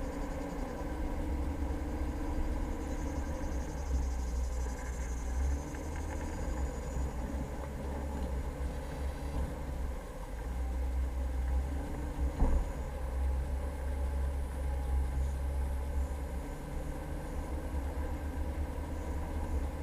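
Jeep Cherokee driving off-road, a steady low engine and drivetrain rumble. A single sharp knock comes about twelve seconds in.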